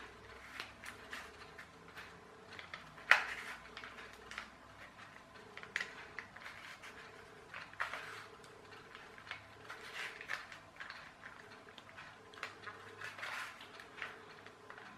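Plastic Rubik's cube being twisted by hand: irregular clicks and scrapes as its stiff layers turn, with one sharp click about three seconds in.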